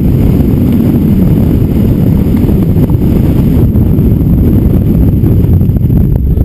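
Strong storm wind buffeting a GoPro microphone: a loud, steady low rumble.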